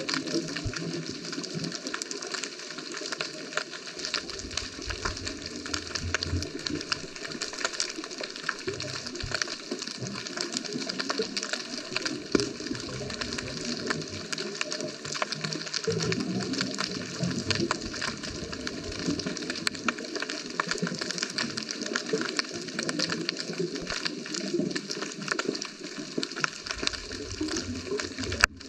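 Underwater ambience: a steady dense crackle of fine clicks, with low whooshing surges coming and going every few seconds.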